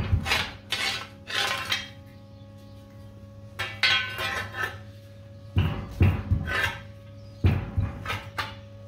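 Steel rod being bent by hand in a bench vise, clanking and scraping against the vise jaws and the steel table, in about four bursts of metallic rattling with dull knocks.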